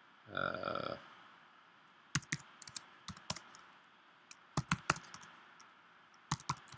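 Computer keyboard keys clicking in short runs as commands are typed, beginning about two seconds in. Before the typing there is a brief hum near the start.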